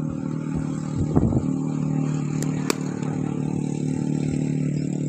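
A steady motor running, an even engine-like drone, with a short louder patch about a second in and two sharp clicks a little past the middle.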